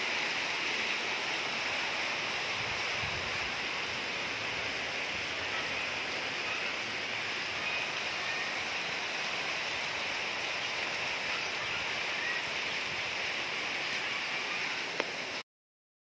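Rain falling steadily, an even hiss that cuts off suddenly about a second before the end.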